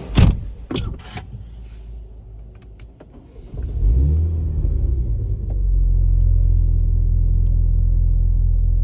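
A few heavy thumps like car doors shutting, then about three and a half seconds in a Mini John Cooper Works F56 engine starts, flares briefly and settles into a steady low idle.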